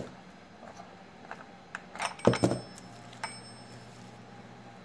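Light metallic clicks and knocks as a loosened chainsaw centrifugal clutch is taken off the crankshaft by hand. There is a sharp click at the start and a cluster of clinks about two seconds in.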